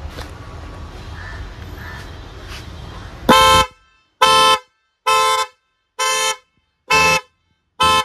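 A pair of chrome twin-tone electric car horns sounding in six short, very strong blasts, about one a second. The blasts start a little over three seconds in, after a low background hum.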